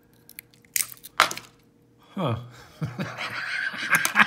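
A lock pick raking a small wafer lock: sharp metal clicks, then rattling and scraping as the lock's core works loose and comes out. There are low falling sounds about halfway through.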